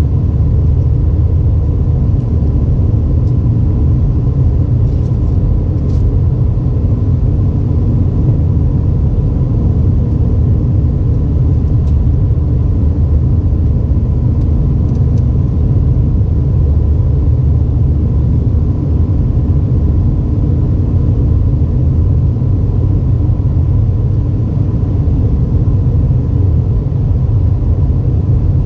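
Steady low rumble of an Airbus A320's engines and airflow heard inside the cabin, with a faint steady whine on top.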